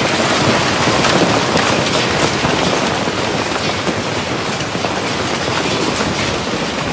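Hail pelting down hard and steadily: a dense, even clatter of countless small impacts.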